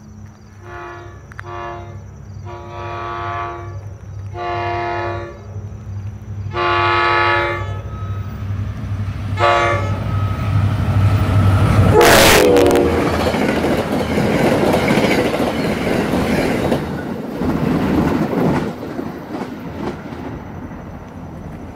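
NJ Transit GP40PH-2 diesel locomotive approaching, its engine drone growing louder as it sounds its horn in a string of blasts, three of them long and the rest short. It passes close with a loud rush about halfway through, and its passenger coaches roll by after it before the sound fades.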